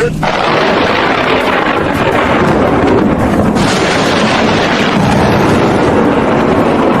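Steady, loud rush of storm wind and rain buffeting the microphone, growing hissier about three and a half seconds in.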